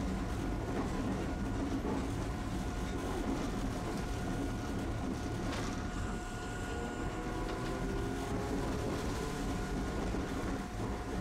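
Tosaden streetcar running with a steady low rumble and a constant hum. From the middle of the stretch on, a motor whine climbs slowly in pitch as it gathers speed.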